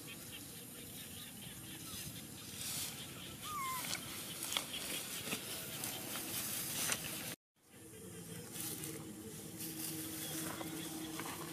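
Rustling and swishing of rice plants with scattered small crackles as someone moves through the field, with one short chirping call about three and a half seconds in. The sound cuts out for a split second just past halfway, then returns with a faint steady hum.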